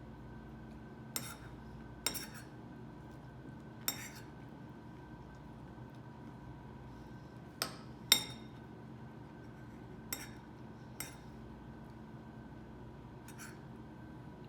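Dishes, glassware and cutlery clinking: about eight separate sharp clinks at uneven intervals, the loudest about eight seconds in, over a faint steady hum.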